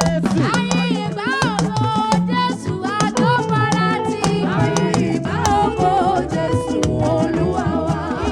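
Upbeat praise music with dense, driving drums and percussion and pitched melodic lines.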